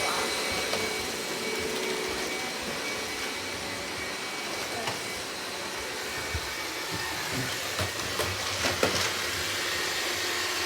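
Robot vacuum cleaner running steadily, a motor hum with a thin whine, with a few light knocks in the second half.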